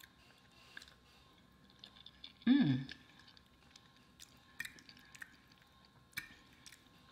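Close-miked eating sounds: soft chewing and wet mouth clicks, with a few light taps of a fork against the plate. A brief vocal sound with falling pitch comes about two and a half seconds in.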